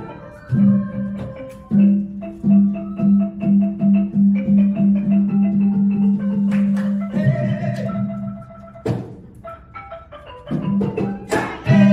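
Traditional Khmer folk dance music led by a roneat (Khmer bamboo xylophone) playing quick struck notes over an even low pulse. The music thins out for a few seconds after the middle, then comes back fuller near the end.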